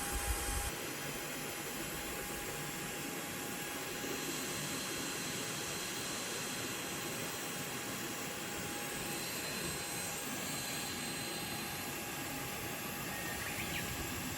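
Steady rush of a river's flowing water, with a few low bumps in the first second.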